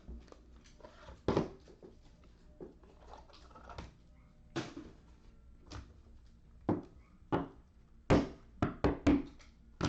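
Irregular taps and thuds of trading-card packs and the box being handled and set down on a tabletop, about a dozen knocks, coming faster near the end.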